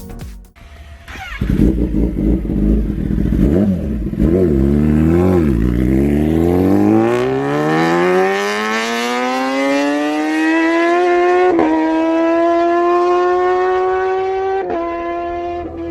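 Kawasaki ZX-10R's inline-four through an SC Project full-system exhaust: a few quick throttle blips, then hard acceleration with the engine note climbing steadily, broken twice near the end by quick upshifts.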